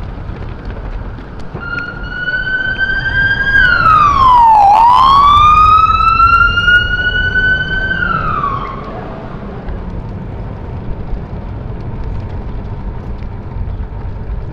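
Police car siren sounding loud and close. It starts a couple of seconds in as a high held tone, swoops down and climbs back up once, holds again, then drops away and stops a little past halfway.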